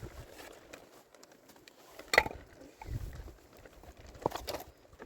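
A few scattered sharp knocks and clicks, the loudest about two seconds in, with a dull low thump just after and two more knocks a little after four seconds.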